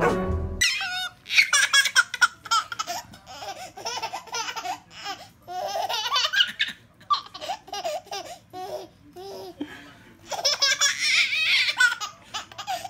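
A baby laughing in repeated bursts of belly laughter, with a lull in the middle.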